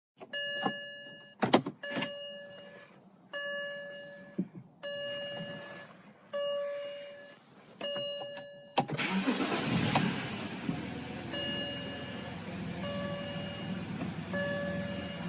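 BMW interior warning chime sounding every second and a half, with a couple of sharp clicks near the second chime. About nine seconds in, the car's engine starts with a loud burst and settles to an idle while the chime keeps repeating more faintly.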